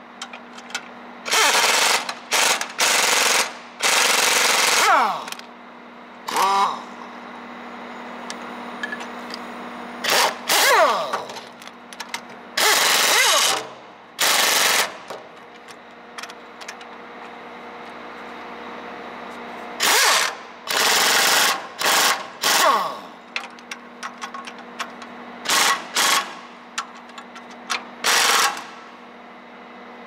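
Impact wrench hammering on bolts in repeated short bursts of about half a second to a second, some with a falling whine as the tool spins down, separated by pauses.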